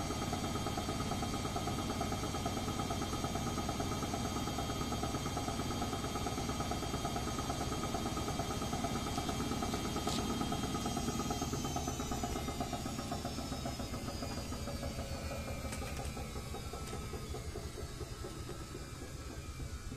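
Edesa front-loading washing machine at the end of its spin, with the motor's steady high whine over the drum's rumble. A little over halfway through, the whine glides down and the sound fades as the drum slows.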